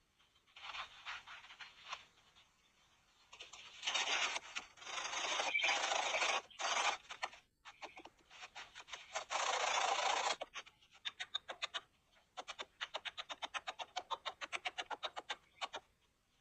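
Scratching and scraping noises in uneven bursts, followed near the end by a run of quick, evenly spaced clicks.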